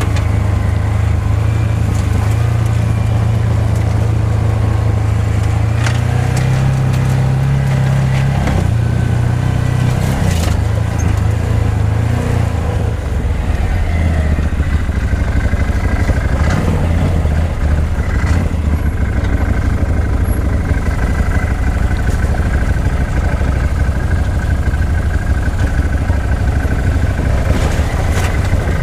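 Side-by-side UTV engine running as the machine drives a rough trail, climbing in pitch from about six seconds in and settling back after about ten, with scattered knocks and rattles from the machine over rough ground.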